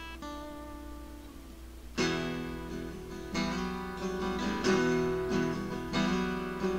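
Background acoustic guitar music: a chord rings and fades, then from about two seconds in, chords are strummed every second or so.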